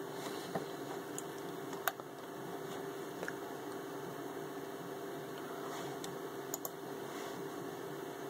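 Steady hum of a desktop computer with a handful of short, sharp clicks, a computer mouse being clicked. Two of the clicks come close together late on.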